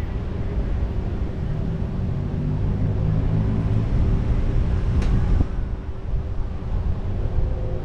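Low rumble of wind buffeting a roof-mounted camera's microphone, mixed with the steady running of the vehicle and surrounding traffic. There is a brief sharp click about five seconds in.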